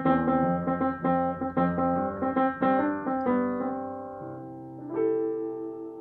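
Upright piano playing the closing bars of a song: a run of notes and chords that stops and dies away, then one final chord struck about five seconds in and left ringing.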